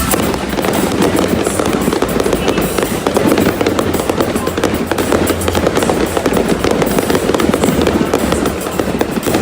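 A rapid, continuous volley of fireworks bursts and crackles over music played through the stadium's sound system.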